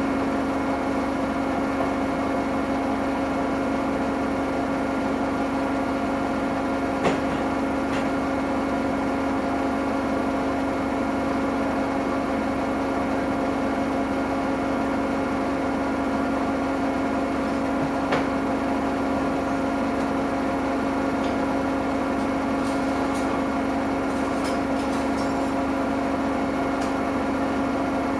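Samsung Eco Bubble washing machine running, a steady motor hum at one even pitch with a few faint clicks.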